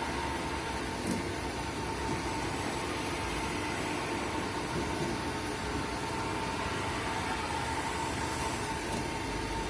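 V-Tec VMC-1270 CNC vertical machining centre running: a steady mechanical hum and hiss with a constant high whine, and a small click about a second in.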